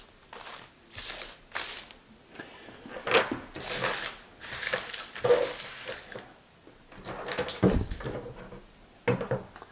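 Plastic bags of drone propellers crinkling and rustling as they are handled and shuffled across a wooden tabletop, with light clicks of small items being set down. A low thump about three-quarters of the way in.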